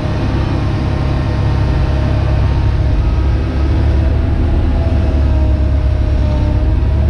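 Hitachi Zaxis 130 excavator's diesel engine and hydraulics working under load, heard from inside the cab, as the boom lifts a bucket of heavy clay and the machine swings toward the barge. A steady low drone, with a faint whine above it that wavers in pitch.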